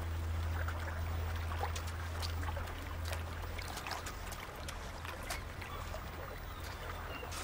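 Shallow water trickling over a pebbly shore, with small scattered clicks and splashes as a raccoon feels through the water and stones with its front paws. A low steady hum fades out about three seconds in.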